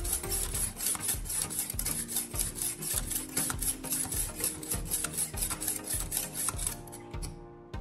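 Grey sharpening stone rubbed quickly back and forth along the edge of a steel knife blade. It makes an even rasping scrape, about five strokes a second, which stops about seven seconds in.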